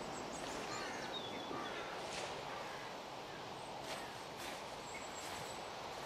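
Open-air countryside ambience: a steady background hiss with scattered short bird chirps and whistles, and a few brief brushing sounds.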